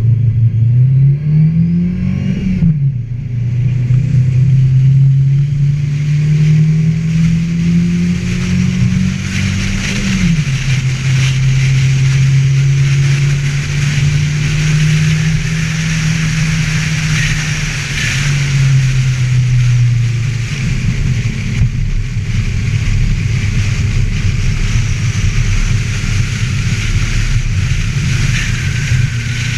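Ford Festiva's engine under hard acceleration at trackcross. It revs up and drops sharply twice as it shifts up, holds steady, then eases off and runs rougher near the end, with a steady hiss of wind and road noise over it.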